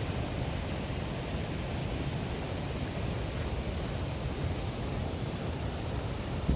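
A waterfall rushing steadily: an even, deep rush of falling water without a break.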